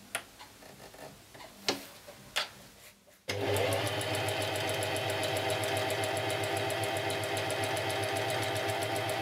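Singer sewing machine starting abruptly about three seconds in and running steadily at speed, needle beating a rapid even rhythm as it zigzag-stitches along a fraying fabric edge; its sound is turned down in editing. Before it starts, only a few faint clicks.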